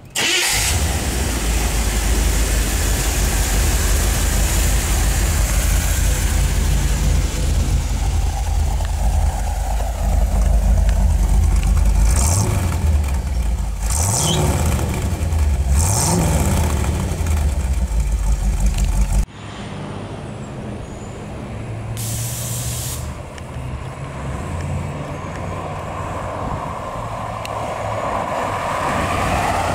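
1972 Chevrolet Corvette's original 350 V8 running through dual exhaust: it comes in abruptly just after the start and idles, and is blipped about three times, the pitch rising and falling, between about 12 and 17 seconds. About two thirds of the way through the sound changes suddenly to the car driving on the road, its engine growing louder as it approaches near the end.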